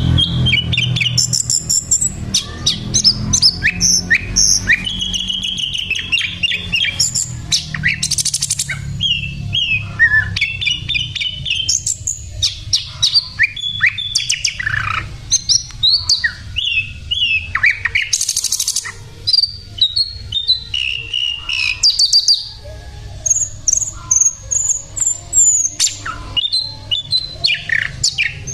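Sikatan londo flycatcher singing nonstop: a rapid, varied run of short whistles, trills and quick chirps, with the faint background rumble of traffic.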